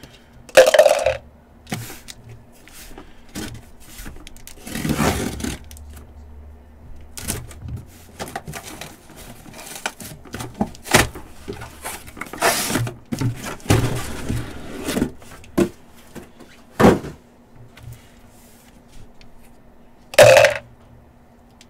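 Sealed cardboard shipping case being slit along its taped seam and opened, with scraping, tearing and handling noise as the boxes are pulled out. There are a few knocks, and two loud thumps, one about a second in and one near the end.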